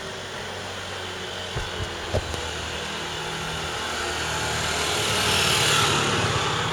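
A motor vehicle passing close by, growing louder to its loudest about five and a half seconds in, over a steady low hum, with a few short knocks about two seconds in.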